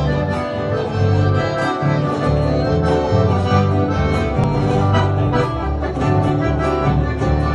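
Live band playing a Paraguayan polka with no singing: strummed acoustic guitars and an accordion melody over a bass line moving in steady steps.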